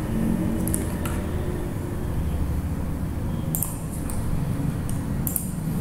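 Steady low room hum with a few short clicks, about a second in and twice more later on.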